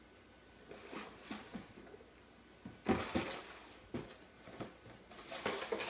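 Cardboard Cheez-It cracker box batted and shoved by a cat across a tile floor: irregular scrapes, scuffs and knocks. They begin about a second in, the loudest cluster comes around three seconds in, and another run follows near the end.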